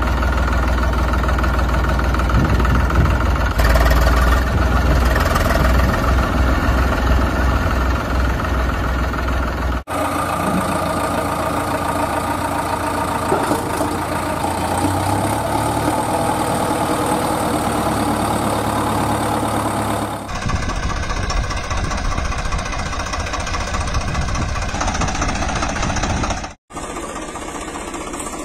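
Vehicle engine sound running and idling, in separate stretches that change abruptly about ten seconds in, about twenty seconds in and near the end, where it briefly drops out.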